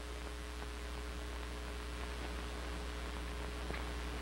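Steady hiss and low hum of an old film soundtrack, with nothing else heard.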